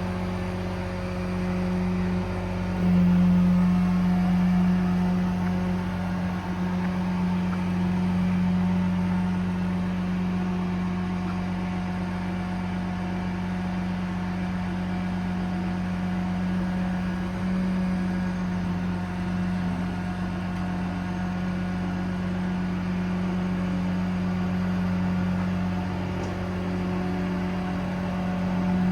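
Truck's Paccar PX9 8.9-litre diesel engine running steadily with the crane's hydraulics, a constant hum with a steady tone that grows louder about three seconds in.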